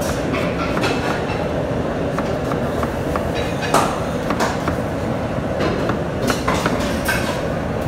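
A steady, fairly loud low rumble of background noise, broken by a few short sharp clicks.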